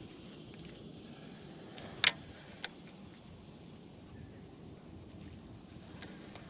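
Faint, high, evenly pulsing insect chirping, with one sharp click about two seconds in and a softer click about half a second later.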